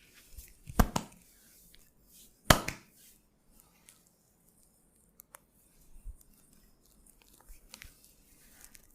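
Hands-on massage: two sharp pairs of snaps, the first about a second in and the second about a second and a half later, then soft rubbing of hands on skin with faint scattered ticks.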